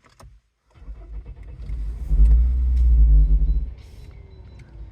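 Toyota Camry engine starting: a low rumble builds after about a second, runs up high and steady for over a second, then drops back to a quieter idle.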